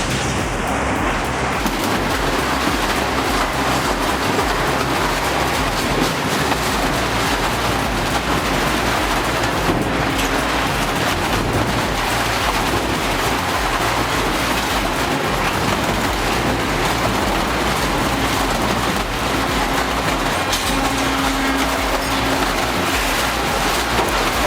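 A heavy shredding machine running, grinding material with a loud, dense, steady clatter. A steady hum comes in near the end.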